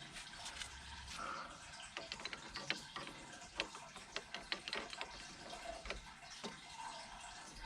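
Faint running or trickling water with many scattered small clicks and taps.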